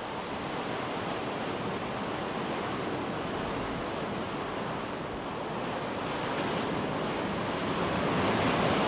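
Sea waves washing against a coral reef shore: a steady rushing of surf that swells a little near the end.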